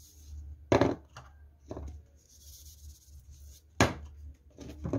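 Kitchenware being handled, with about five sharp knocks and clicks. The loudest come just under a second in and about four seconds in, over a low, steady hum.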